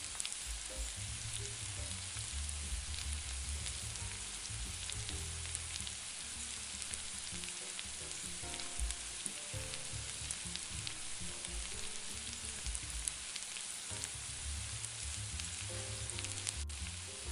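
Onions, roasted red bell peppers and garlic sizzling steadily in a stainless steel sauté pan, with fine crackles all through, while a metal spoon stirs through them.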